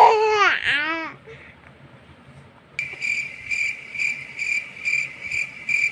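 A baby's brief high squeal, its pitch rising and falling in quick arcs. About three seconds in, a steady, high, thin trill starts suddenly and pulses about twice a second.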